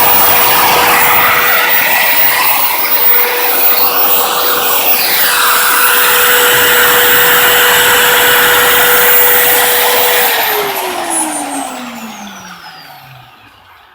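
Motor of a keyway-milling setup on a lathe running with a steady whine and dense mechanical noise, then switched off about ten seconds in, its pitch falling as it spins down to a stop.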